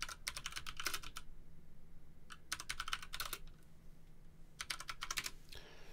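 Typing on a computer keyboard: three short runs of quick key clicks.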